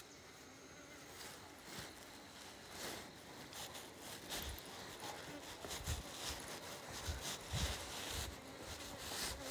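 Faint footsteps on concrete steps, with a few soft low thumps in the second half, over a light hiss from the moving phone.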